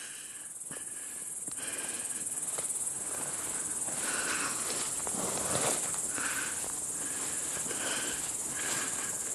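Insects chirring in a steady high-pitched band, with the uneven swish and rustle of footsteps wading through tall grass and weeds.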